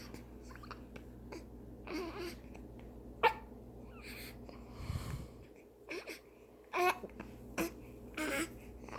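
A baby hiccupping and fretting: short whimpering, fussy cries come about every second, with one sharp, loud hic about a third of the way through. The fussing is the baby's frustration at the hiccups.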